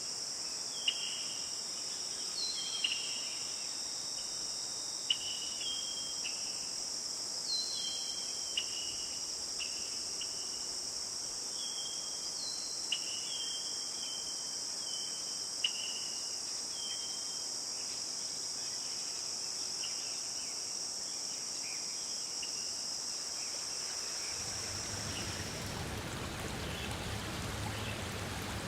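A steady, high-pitched insect chorus of crickets or cicadas, with short repeated bird chirps over it. Near the end the insects fade out and an even rush of running water takes over.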